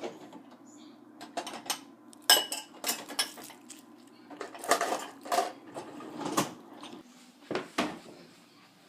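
Irregular clinks and knocks of dishes and cutlery being handled, over a faint steady hum.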